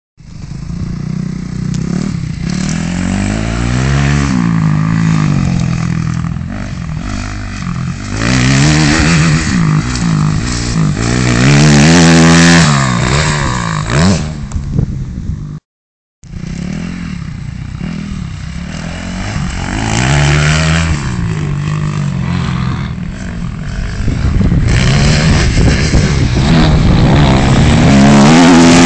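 Motocross dirt bike engine revving hard and dropping back again and again as it rides the dirt track, its pitch climbing and falling with each burst of throttle. The sound cuts out for about half a second about halfway through, and the bike is loudest near the end as it passes close.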